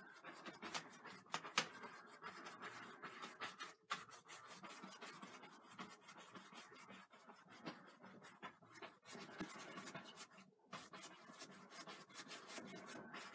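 Faint scratchy rubbing of a paintbrush scrubbing oil paint onto a canvas in many short, irregular strokes.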